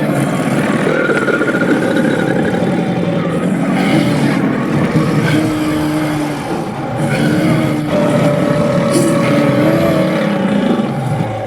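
Dragon creature sound effects: loud rasping growls with pitched, wavering cries laid over them, in a few long phrases with brief breaks between.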